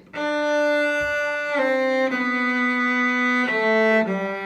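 Cello played slowly with the bow, a single line of long held notes that changes pitch about four times, each note smoothly sustained.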